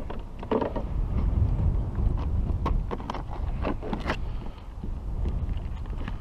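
Wind buffeting the microphone as a steady low rumble, with a run of sharp clicks and light rattles from hands handling fishing tackle, loudest in the middle.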